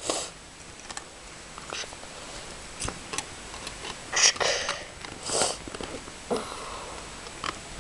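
Scattered small clicks and rustles of plastic Lego bricks as a Lego pistol is handled and its magazine taken out, with a few short bursts of hissing noise around the middle.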